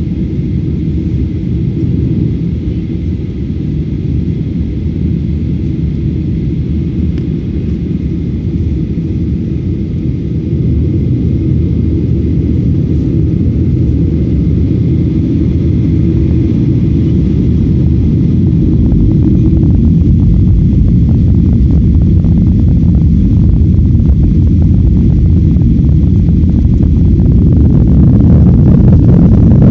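Airliner engines and rumble during takeoff, a steady low roar that grows louder in a step about a third of the way in and again near the end as power comes up.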